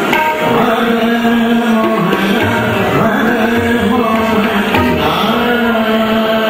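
Hindustani classical vocal music in Raag Puriya Kalyan: a male voice sings long, gliding notes over a steady drone, with tabla strokes accompanying.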